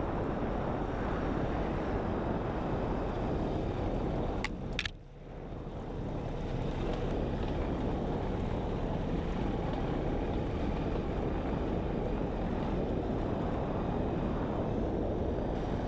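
Motorcycle riding on a dirt trail: a steady rush of engine and wind noise. Two clicks and a brief drop in level come about five seconds in.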